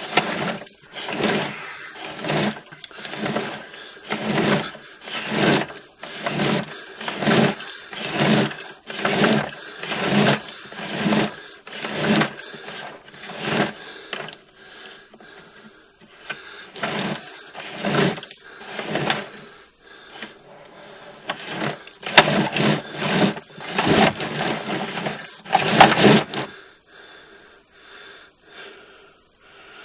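Sewer inspection camera's push cable being fed by hand into the main line through the cleanout, a rhythmic sliding rasp about one and a half strokes a second. The strokes stop about 26 seconds in.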